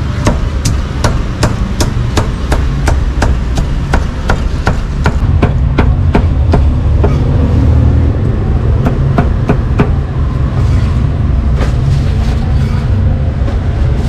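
Cleaver chopping pork on a chopping block: sharp regular strokes about three a second, thinning out to fewer, fainter strokes about halfway through, over a steady low rumble.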